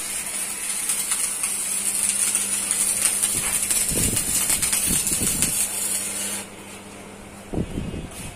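A refrigeration compressor humming under a steady high hiss of escaping gas, with a few knocks. The hiss cuts off about six and a half seconds in, and the hum stops about a second later.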